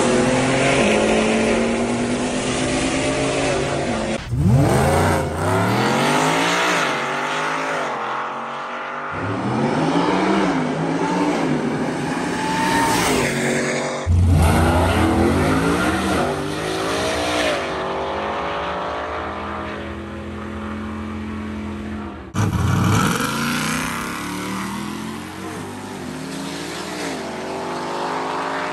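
A Whipple-supercharged Ford F-150 5.0 V8 making full-throttle runs. The engine pitch climbs and drops back with each upshift, in several clips that cut abruptly from one to the next every few seconds.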